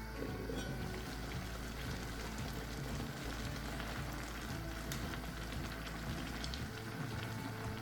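Green cabbage cooking in a pot on the stove, a steady hiss of steaming and sizzling. A low hum underneath drops away near the end.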